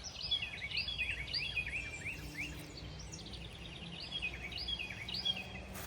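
Small birds chirping: a busy series of short, quick downward-sliding chirps, several a second, over steady outdoor background noise.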